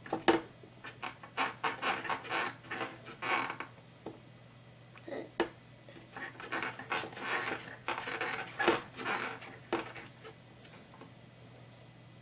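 Skateboard wheel and metal truck parts handled by hand: irregular clicks, knocks and small metal rattles in two spells of clatter with a pause of about two seconds between, over a faint steady hum.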